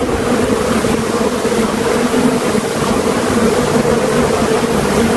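Steady, loud buzzing of a large number of honeybees flying around an opened hive, a continuous drone with a low hum and an overtone above it.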